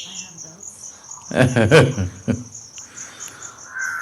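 Crickets chirping in a steady, evenly pulsing high trill, with scattered short bird calls. A brief, louder human voice sounds about a second and a half in.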